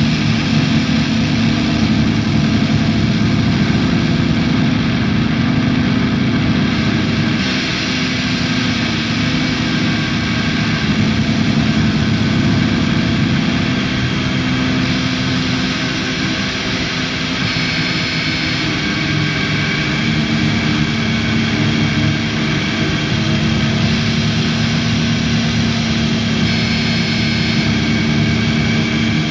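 Drone/noise music: a dense, steady wall of layered sustained low tones and noise, with a thin high tone added about halfway through and again near the end.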